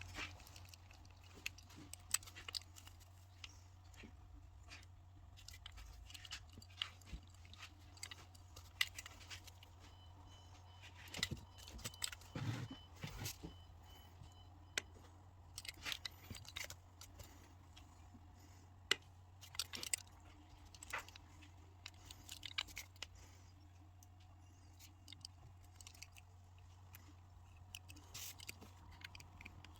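Scattered small clicks, taps and light scrapes of small parts being handled, over a steady low hum.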